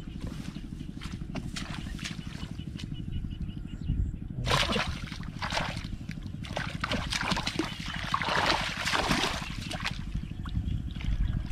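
Hands splashing and sloshing in shallow muddy water while groping through the mud, in a run of irregular splashes from about four seconds in to about ten seconds, over a steady low rumble.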